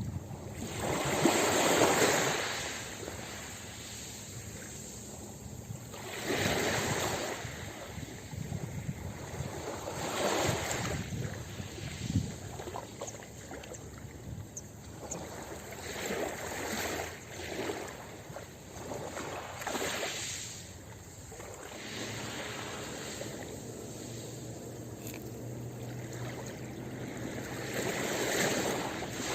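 Ocean waves breaking on a beach: a surge of surf every few seconds, the strongest about two seconds in, with a steady wash of water between.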